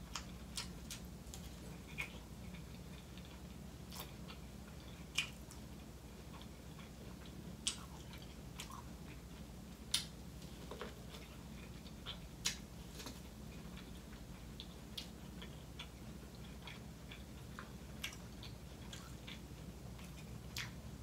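Close-miked biting and chewing of corn on the cob: scattered crisp clicks and snaps as kernels are bitten off the cob, a few much louder than the rest, over a faint steady low hum.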